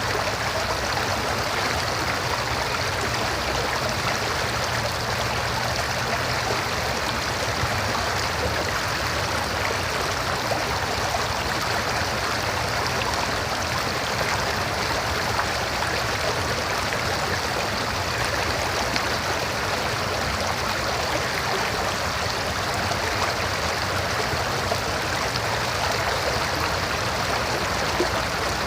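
River water flowing over rocks: a steady, even rush with no change in level.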